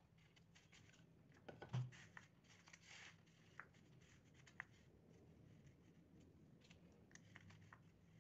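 Quiet handling of small cut popsicle-stick pieces on a tabletop: faint scrapes, taps and small clicks, with one louder soft knock about two seconds in.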